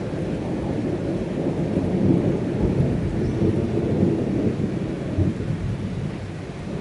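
Thunder from a violent thunderstorm: a long, low rolling rumble that builds over the first couple of seconds and dies away toward the end.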